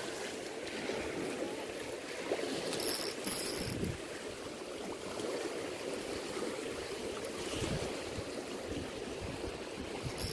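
Fast, turbulent water rushing and churning steadily, with brief high-pitched clicks about three seconds in.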